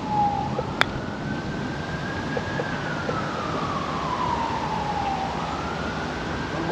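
A putter strikes a golf ball once with a sharp click about a second in. Behind it a siren wails, one tone that climbs, sinks slowly over a few seconds, then climbs again.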